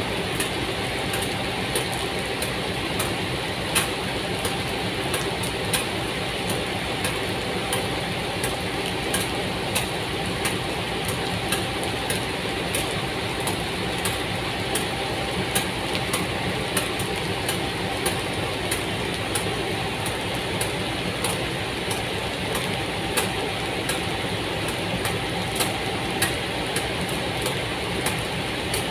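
KAI CC203 diesel-electric locomotive standing with its engine idling, a steady hum. Rain falls throughout, with frequent irregular sharp taps of raindrops.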